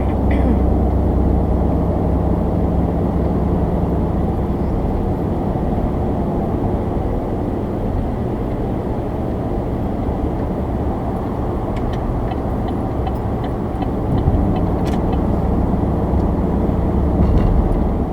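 Road noise inside a moving vehicle: a steady engine drone under a constant hiss of tyres and wind. A short run of faint, evenly spaced ticks comes about two-thirds of the way through.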